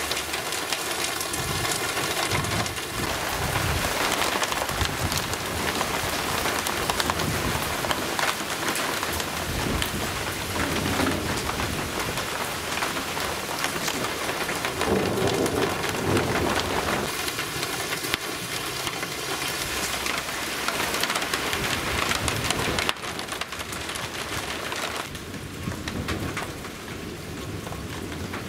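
Heavy rain pouring down in a thunderstorm cloudburst, with a roll of thunder rumbling through the middle. The rain eases somewhat near the end.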